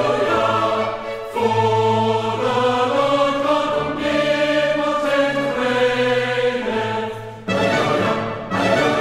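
Background choral music: voices holding long sustained chords that shift to new chords about a second in and again near the end.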